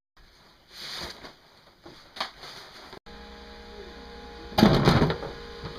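Soft rustle of sail cloth, then a steady electrical hum from a Sears Kenmore sewing machine. Near the end comes a loud, rough clatter as the machine is handled.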